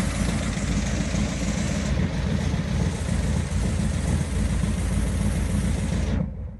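1969 Camaro SS's 396 big-block V8 idling through its chambered exhaust, a loud, steady low rumble with a hiss over it, cutting off suddenly about six seconds in.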